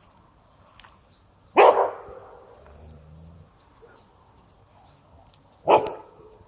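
A border collie barks twice, two single sharp barks about four seconds apart.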